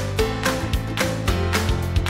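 Background music with a steady beat, about two strokes a second, under held melodic notes.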